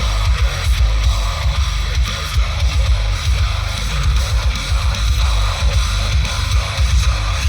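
Loud heavy rock music with electric guitar played through a 12-inch car-audio subwoofer on a Vevor amplifier, the deep bass far louder than the rest.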